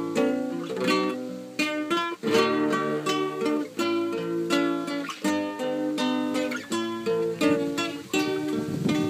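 Two acoustic guitars played together, one a nylon-string classical guitar: plucked melody notes over chords, with no singing.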